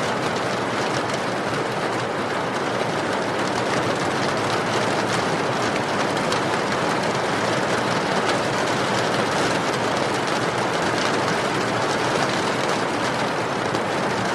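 Steady rain falling, an even wash of noise with fine drop ticks scattered through it.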